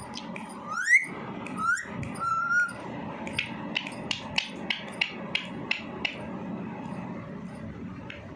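A pet parrot giving two short rising whistles and then a short held whistle. These are followed by a run of about ten sharp taps, roughly three a second.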